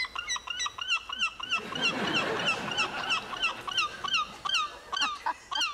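A game-show buzzer playing a recorded animal call: a fast, steady run of short, squeaky calls that each fall in pitch, about four a second, which cuts off near the end.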